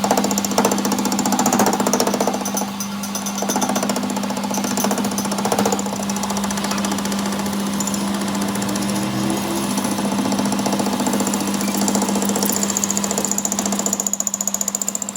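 A workshop machine running with a steady hum and a fast, rattling buzz, held at an even level until it drops away at the very end.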